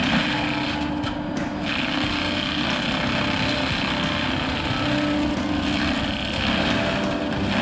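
Bobcat T870 compact track loader with a forestry mulcher running steadily, its diesel engine droning with slight rises and falls in pitch.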